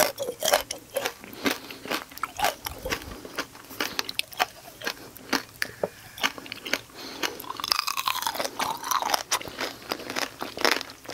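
Close-miked crunching and chewing of shine muscat grape tanghulu: the thin, hard sugar coating cracks in many sharp crunches between bites and chewing.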